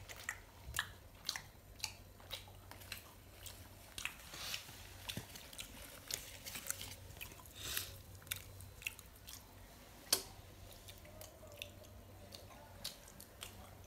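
A person chewing flatbread, with irregular wet smacks and clicks of the mouth, several a second.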